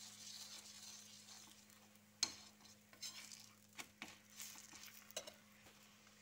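Steel spatula scraping and knocking against a hot pan as it is worked under a thin roti to loosen it, with a faint sizzle at the start. The sharpest knock comes about two seconds in, followed by several lighter scrapes and taps.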